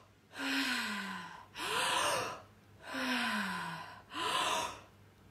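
A woman doing breath work, taking four deep, audible breaths one after another. Two of them end in sighs whose voiced tone falls in pitch, and the other two sound like gasps.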